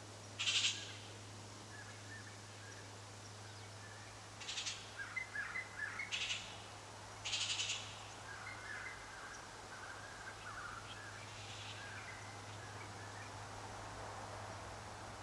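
Calls of an unseen wild animal: four short, raspy bursts in the first eight seconds and a fainter one later, with thin chirps between them, over a steady low hum.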